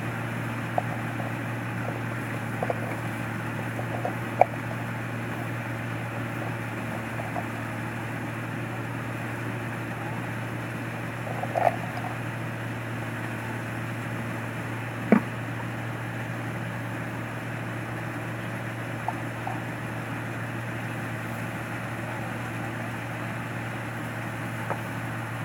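An engine running steadily with a constant low hum, broken by a few scattered sharp clicks and knocks.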